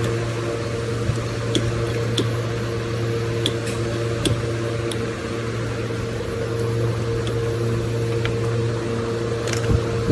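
Steady machine hum at an even level, with a few light clicks scattered through it.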